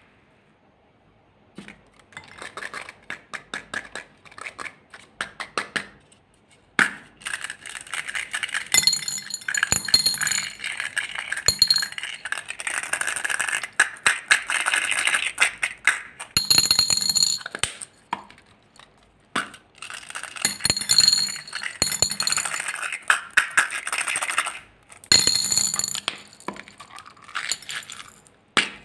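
Small beads poured and shaken out of a plastic cup into a glass bowl: dense clinking and rattling against the glass in runs of a few seconds with short pauses, and a high ringing from the bowl during the heavier pours.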